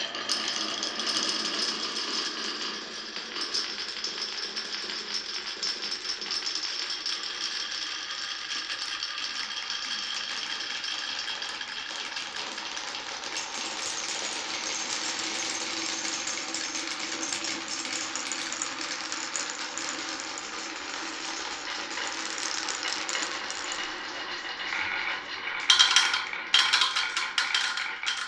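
Glass marbles rolling and rattling along a wooden marble run: a continuous clatter of rapid small clicks. Several louder sharp clacks come near the end.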